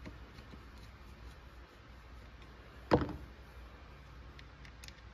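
Faint small clicks of hand work on a Husqvarna 372XP chainsaw's anti-vibration mount, with one sharp metallic clunk and a short ring about three seconds in.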